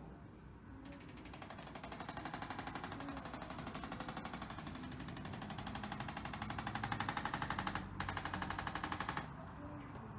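A handheld motorized percussion instrument tapping rapidly and evenly, many strokes a second. It starts about a second in, breaks off for a moment near eight seconds, and stops near the end.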